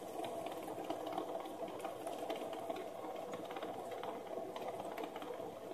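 Fidget spinners spinning on a table top, their ball bearings giving a steady whirr.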